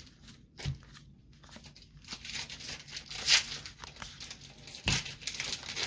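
Foil wrapper of a Magic: The Gathering booster pack tearing and crinkling as it is opened, starting about two seconds in, with a knock about five seconds in.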